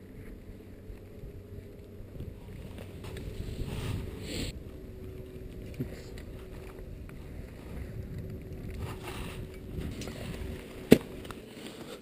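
Low rumble of wind and movement on a body-worn action camera's microphone, with scattered small clicks of climbing gear and crampons on rock. One sharp knock about eleven seconds in is the loudest sound.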